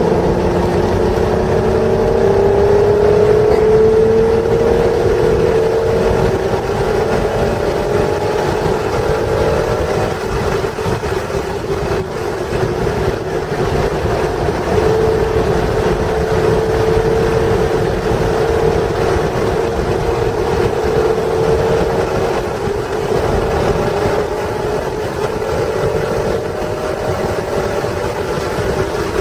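Stock 3.0-litre V6 of a 1996 Acura NSX pulling hard, its note climbing slowly in pitch in three long pulls, over steady wind and road noise.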